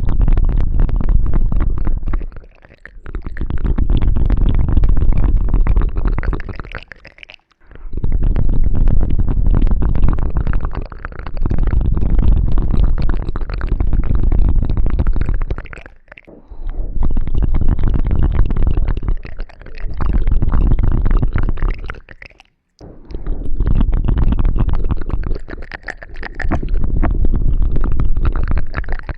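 Close-miked ASMR ear cleaning: rubbing and scratching right on the microphone, heard as a dense crackle with a heavy low rumble. It comes in strokes of a few seconds each, with short breaks between them.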